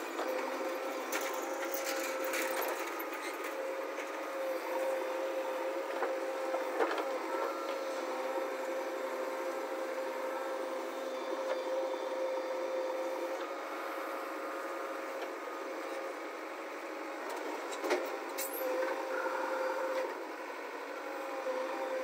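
JCB backhoe loader running steadily with a whine while its backhoe bucket digs soil. Knocks and clunks from the bucket and arm come about two seconds in and again near the end.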